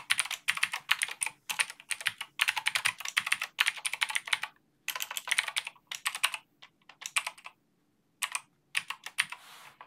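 Typing on a computer keyboard: rapid runs of key clicks broken by short pauses, with a longer break about three quarters of the way through.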